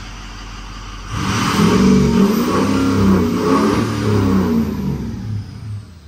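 Ford 6.0 Power Stroke V8 turbo-diesel revved up from idle about a second in, the pitch climbing and then falling back toward idle near the end. The engine is running hot and steady after a new injection pressure regulator (IPR) cured its hot crank-no-start.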